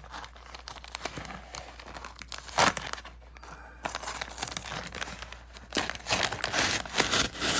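Packaging crinkling and tearing as a mailed package is opened by hand, in irregular rustles with a sharper rip about two and a half seconds in and a busier stretch of crinkling near the end.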